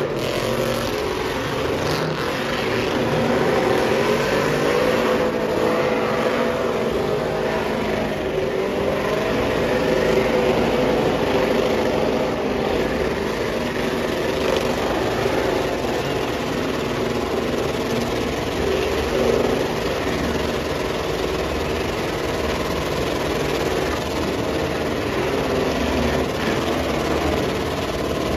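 Several pickup truck engines held at high revs during burnouts, their pitch wavering up and down without a break.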